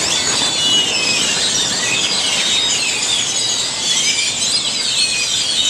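A large flock of birds calling together from a tree: a loud, dense chorus of many overlapping squeaky chirps and whistles.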